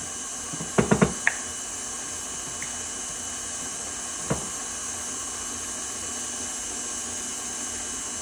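KitchenAid Artisan stand mixer running at low speed, its dough hook mixing flour into bread dough, a steady motor whine. A few sharp knocks about a second in and one more about four seconds in.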